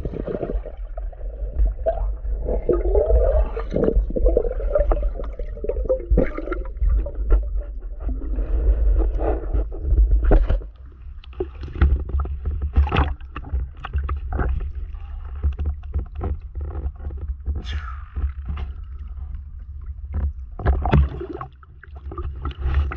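Muffled underwater rumbling and knocking as a speared Nile tilapia thrashes on the spear. About ten seconds in the sound changes to the surface, where water sloshes and splashes around the camera with a low rumble of wind and water on the microphone.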